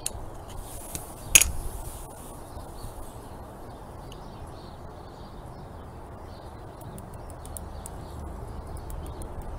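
A single sharp click about a second and a half in from the air rifle, over a low steady rumble.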